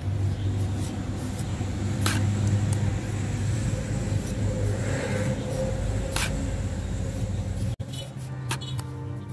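A steady low motor-like rumble, with two sharp clicks, cut off near the end as music begins.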